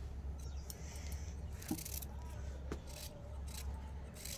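Small kitchen knife slicing ivy gourds (kundru) held in the hand, a string of short cuts about one every half second, over a steady low hum.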